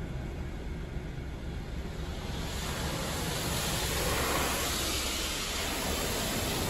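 Belanger Vector in-bay automatic car wash running, heard from inside the car's cabin: a low rumble, then a steady rushing hiss that swells in about two and a half seconds in.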